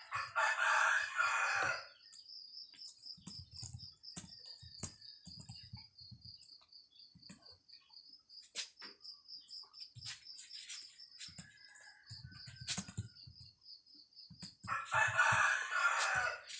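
A rooster crowing twice, each crow lasting about two seconds, once at the start and again near the end. In between come scattered sharp clicks and soft thumps, along with a steady, pulsing high-pitched chirping.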